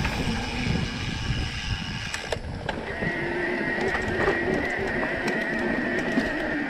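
Electric mountain bike ridden over a bumpy dirt trail: steady rumble of the tyres and frame with scattered knocks and rattles. About three seconds in, a steady whine of the bike's drive motor sets in.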